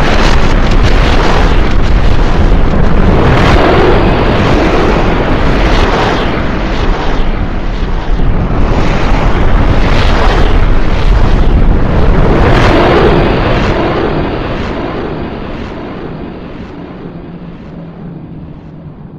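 Loud, dense rumbling noise with slow swells every few seconds, fading steadily over the last five seconds.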